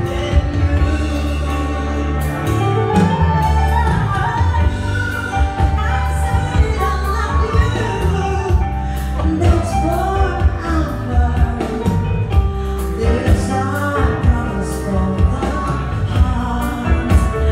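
Woman singing into a handheld microphone with a live band of acoustic guitar, electric guitar and a heavy, steady bass, amplified through a PA.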